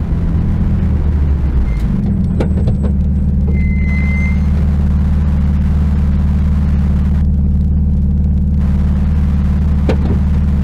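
Porsche 997 GT2's twin-turbo flat-six, heard from inside the cabin, running low as the car rolls to a stop, then settling to a steady idle from about three seconds in.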